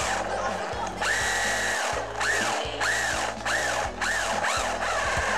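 Udi RC drift truck's electric motor whining as it drives over a hard floor. The whine holds steady for under a second, then rises and falls in pitch again and again with short bursts of throttle, about one a second.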